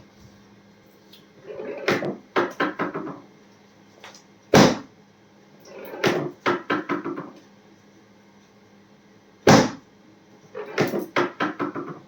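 Repeated percussive knocks: short runs of quick strokes alternate with single heavy thumps, a few seconds apart.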